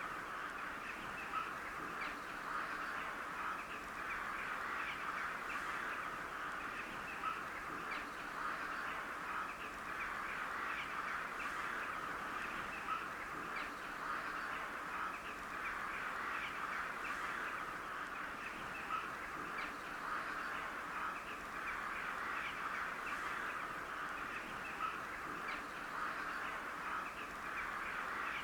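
A flock of crows calling all at once, a dense, unbroken chatter of short caws with a few louder calls standing out here and there.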